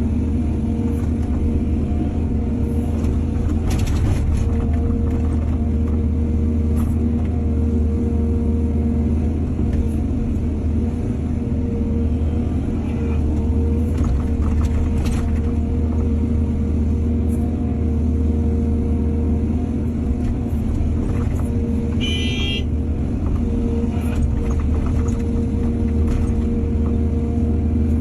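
Excavator's diesel engine running steadily with a deep rumble, with a few short knocks and scrapes and one brief high-pitched squeal about two-thirds of the way through.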